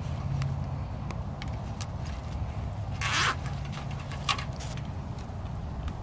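Plastic zip tie being threaded and pulled tight around wire fencing, giving a short ratcheting zip about three seconds in and a briefer one a second later, with light clicks and rustling from the fence wire and dry leaves. A steady low rumble sits underneath.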